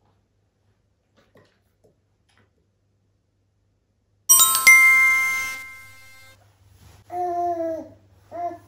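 A bell-like metallic chime struck twice in quick succession about four seconds in, ringing out and fading over about two seconds. Near the end come two short voice-like calls that bend in pitch.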